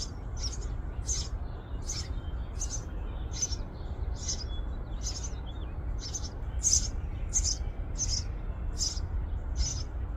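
House sparrow chirping: a single short, high chirp repeated at an even pace, about one and a half times a second, over a low steady background rumble.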